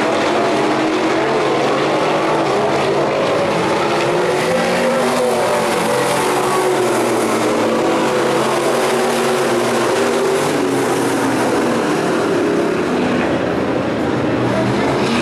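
Several dirt-track sport modified race cars' V8 engines running at racing speed together, their pitches rising and falling as the cars work around the oval.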